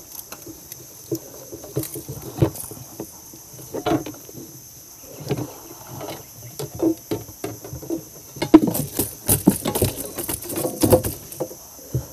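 Irregular knocks, thumps and rattles of a landing net and a caught fish being handled on the floor of a wooden boat, coming fast and loud about two-thirds of the way in. A steady high insect drone runs underneath.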